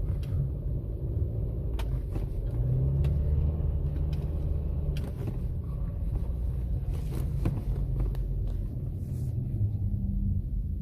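Subaru XV's boxer engine running under load as the car drives through deep snow: a steady low rumble whose pitch shifts a little, with scattered short knocks and clicks.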